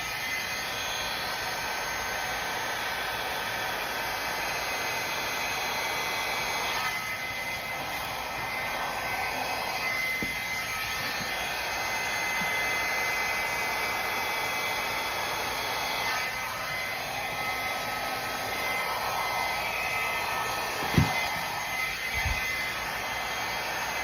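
Hairdryer running steadily on a medium setting, blowing air over wet pour paint to open it into a bloom. Two short thumps near the end.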